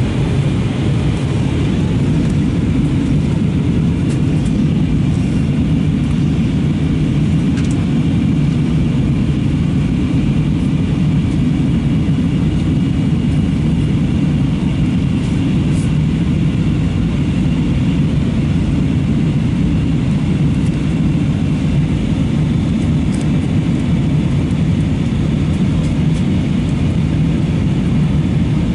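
Steady in-flight cabin noise of an Airbus A320-232 airliner: the low, even rumble of airflow and engines, with a faint high steady tone over it.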